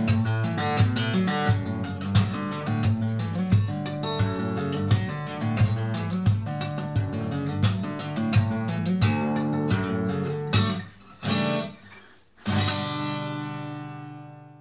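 Intro music on acoustic guitar, quick plucked and strummed notes in a steady rhythm, breaking into a few separate strums about ten seconds in and ending on one chord that rings out and fades.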